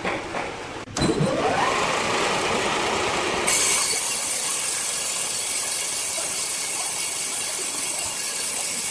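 Large sawmill circular saw starting about a second in, its pitch rising as the blade comes up to speed, then from about three and a half seconds a steady, brighter hiss and whine as it runs on.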